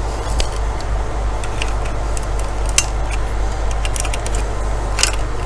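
Scattered light clicks and metallic clinks as router parts, screws and a tool are handled during disassembly, over a steady low hum.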